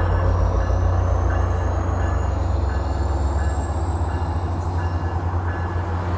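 Caltrain commuter train departing: the MP36 diesel locomotive's engine runs with a deep, steady rumble as the train rolls, and a faint high whine rises slowly in pitch throughout.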